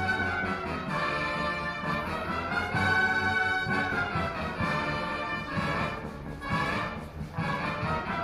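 Concert band playing, brass to the fore: full sustained chords in phrases that change about every second.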